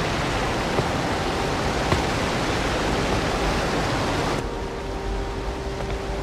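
A steady wash of hissing noise, the kind used as a noise sweep or effect in an electronic track. About four seconds in, the upper hiss cuts off suddenly, leaving a lower rumble with a faint steady tone.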